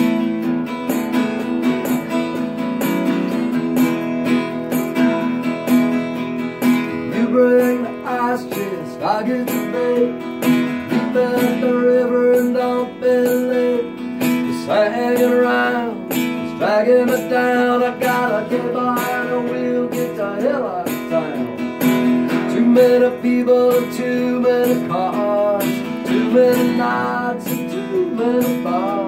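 Acoustic guitar played solo: steady strummed chords with a picked melody line over them, its notes bending in pitch.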